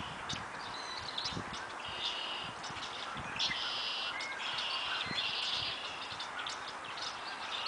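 Birds chirping in repeated trilled phrases, each about half a second to a second long, over a steady background hiss, with a few faint low knocks.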